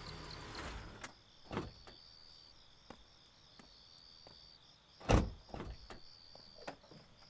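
A car comes to a stop and its running noise dies away about a second in. A car door's latch then knocks once, and a heavier door clunk, the loudest sound, comes about five seconds in. High cricket chirping repeats steadily behind it.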